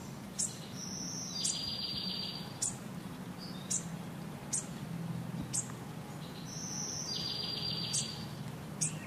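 Small birds and insects: short high chirps about once a second, with two buzzy trills lasting about a second each, a few seconds apart, over a low steady hum.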